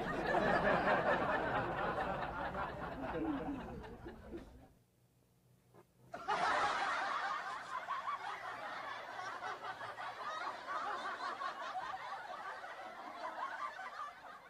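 Several people laughing in two stretches, broken by a short silence of about a second and a half near the middle.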